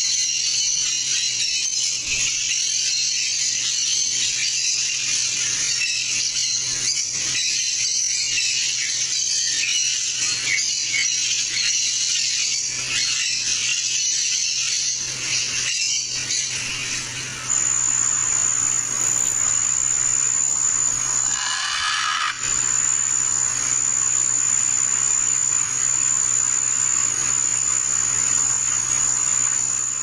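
Shrill insect chorus buzzing densely; a little past halfway it changes to one steady high-pitched whine. A low steady hum runs underneath, and a brief rippling call sounds near the end of the first half of the whine.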